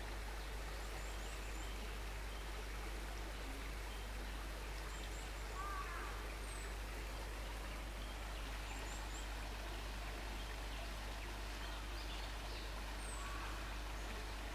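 Steady outdoor background hiss with faint bird calls: short high chirps repeat every few seconds, and a brief lower chirping phrase comes twice, about five seconds in and near the end.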